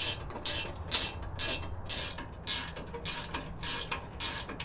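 Hand ratchet wrench turning a bolt, a short rasping ratchet run about twice a second with each back-swing of the handle.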